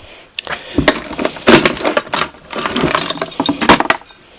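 Small metal tools and hardware clinking and rattling against each other as they are rummaged through by hand, a quick clatter of knocks and clinks that starts about a second in and stops near the end.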